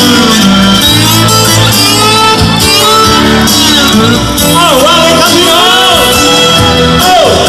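Loud live band music with a singer singing into a hand-held microphone, holding long wavering notes near the end.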